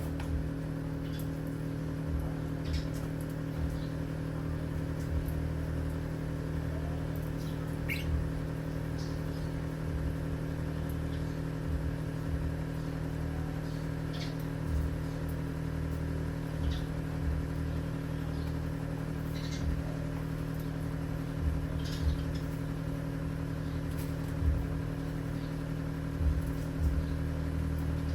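Parrots giving scattered short, high chirps over a steady low mechanical hum, with frequent soft low thumps.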